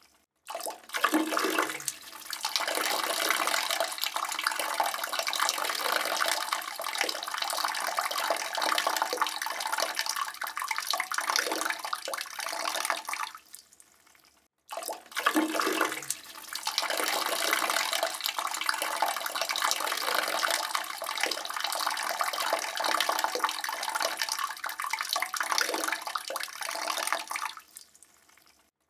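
A man urinating into a toilet bowl: a steady stream splashing into the water, starting abruptly, running about twelve seconds and tapering off, then the same stream once more after a brief pause.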